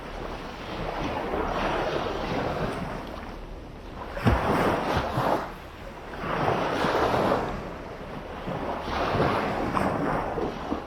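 Sea waves breaking and washing up on a beach, the surf swelling and fading every two to three seconds, with a brief low thump about four seconds in.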